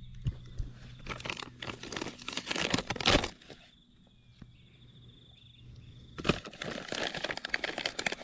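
Crinkly rustling of something being handled, in two spells about three seconds apart, over a faint steady hum.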